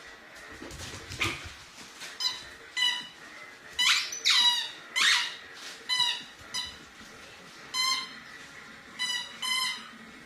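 A squeaky dog toy squeaked again and again: about a dozen short, high-pitched squeaks, often in quick pairs, some falling in pitch.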